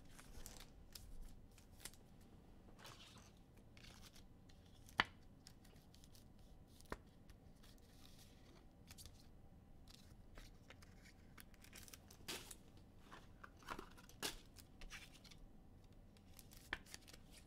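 Faint handling of football trading-card packs: soft rustling and tearing of pack wrappers as cards are pulled and sorted. A few sharp clicks come through, the clearest about five and seven seconds in.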